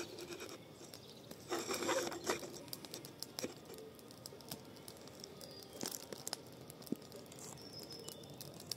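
A garden fire of pruned bush cuttings crackling in a fire bowl, with scattered sharp pops. A louder crunching rustle comes about one and a half to two and a half seconds in.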